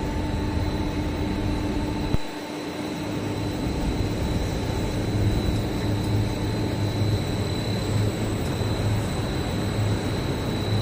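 Plastics-processing machinery running steadily: a constant mechanical drone with a thin high whine over it and a low, pulsing hum. The lower part of the sound drops away abruptly about two seconds in, then builds back.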